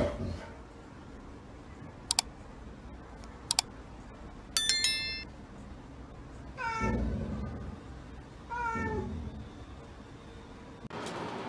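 A domestic cat meowing twice, about two seconds apart, each meow falling in pitch. Before the meows come two sharp clicks and a short, bright ringing tone that fades, the loudest sound here.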